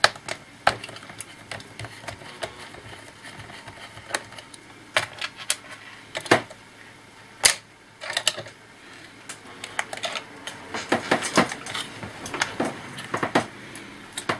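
Irregular clicks and light taps of small laptop parts being handled and worked apart: screwdriver, screws, metal shielding and plastic casing. The clicks come thicker and faster in the last few seconds.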